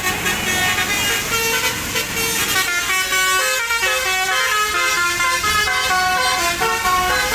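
Basuri telolet horn on a tour bus, driven by a DAV tune module, playing a melody of quick stepping notes in several tones at once.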